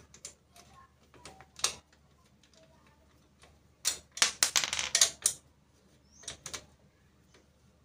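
Sharp metallic clicks and clatter from hand work on a spoked motorcycle rear wheel, with a quick run of rattling clicks about four to five seconds in.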